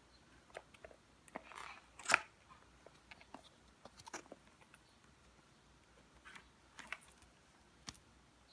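Garmin cardboard box being opened by hand: scattered light taps, rustles and crinkles of cardboard and plastic packaging, with one louder crunch about two seconds in.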